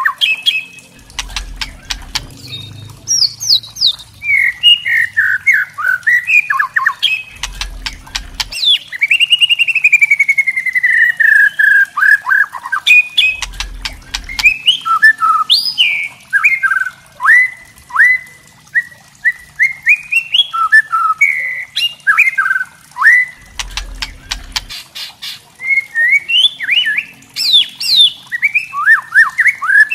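White-rumped shama (murai batu) singing: a loud, varied run of whistled phrases mixed with rapid clicking rattles (kretekan chatter), including one long falling whistle about ten seconds in. A few short low thumps are heard under the song.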